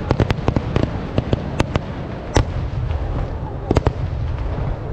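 Kerala temple-festival fireworks (vedikkettu) going off: a quick, irregular run of sharp cracks over a continuous low rumble, thinning out midway with one loud crack, then bunching again near the end.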